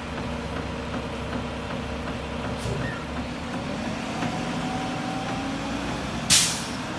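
Heil split rear loader garbage truck's diesel engine idling steadily with faint rattles, then a sharp hiss of its air brakes releasing near the end as the truck gets ready to pull away.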